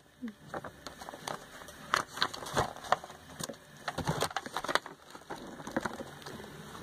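Glossy paper brochure being handled and its pages turned: irregular crinkles and rustles of the paper.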